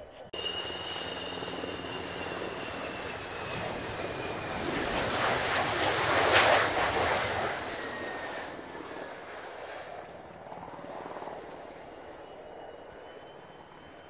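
F-4EJ Kai Phantom's twin J79 turbojets at low power as the jet rolls past on the runway after touchdown. A high whine slowly drops in pitch over the jet noise, which swells to a peak about six seconds in and then fades away.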